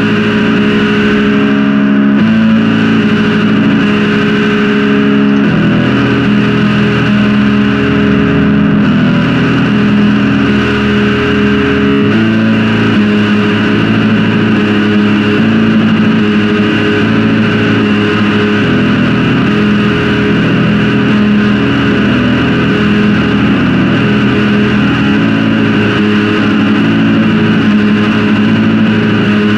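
Metal music in a loud, dense mix of distorted guitars and drums, the chord shifting every few seconds.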